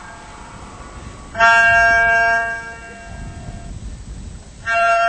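Very long outdoor strings of a sound installation sounding two sustained, horn-like tones, each a rich stack of steady overtones: one about a second long beginning over a second in, the other starting near the end. A low rumble of wind lies between them.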